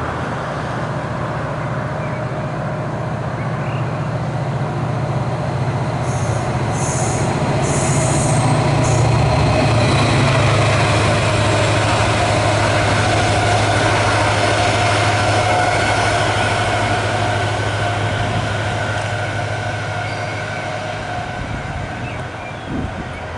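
DSB S-tog and regional trains running past: a steady low rumble with squealing wheel tones, swelling about ten seconds in and easing off near the end. A few brief high-pitched bursts come between six and nine seconds in.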